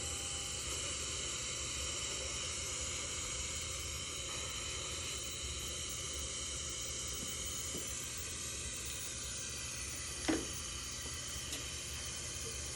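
Dental equipment running with a steady hiss and faint high whistling tones, with one short click about ten seconds in.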